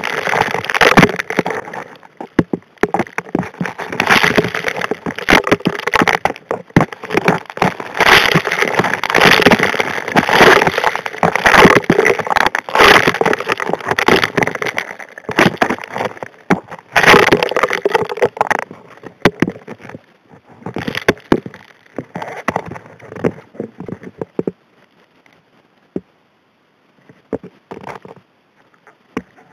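Gravel and small rocks clattering against and through the steel suction nozzle of a Model 625 hand dredge, heard underwater. It is a dense, irregular run of knocks and clicks that thins out after about twenty seconds to a few scattered clicks.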